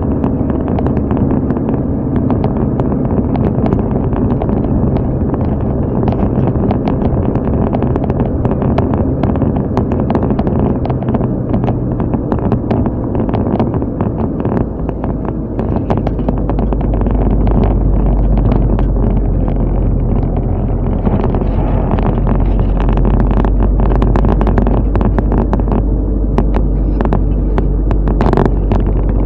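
Car driving: steady engine and road noise with some wind on the microphone, the low rumble growing stronger about halfway through.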